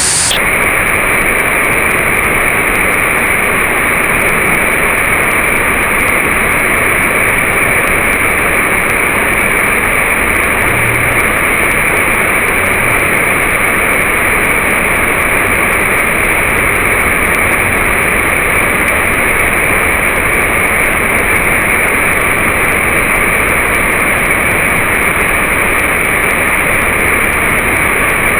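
Steady rushing noise of falling water, slowed down along with the slow-motion footage so that it comes across as a low, even, engine-like rumble.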